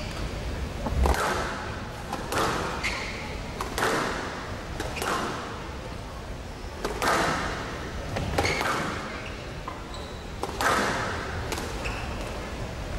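Squash rally: the ball smacking off rackets and the walls every second or two, with short high squeaks of shoes on the court floor between the hits.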